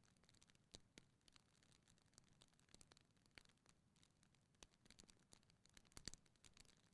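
Wood fire crackling faintly in a fireplace: scattered, irregular small pops and snaps over a soft hiss, the sharpest snap about six seconds in.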